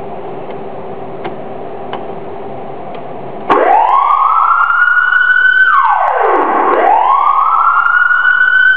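Elfir Zura PS-100R 100 W electronic siren switched into a wail tone, starting suddenly a few seconds in. Each cycle sweeps quickly up to a high pitch, holds there, then falls steeply, about every three seconds. Before it starts there is a steady low hum with a few faint clicks.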